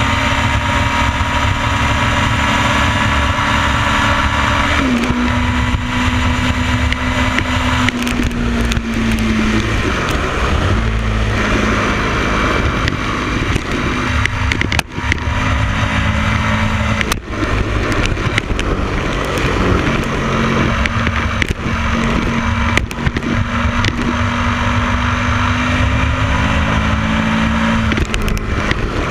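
Motorcycle engine running at road speed, recorded close with a steady rumble of wind and road noise. The engine note drops sharply about five seconds in, then slowly drifts and wavers for the rest of the ride.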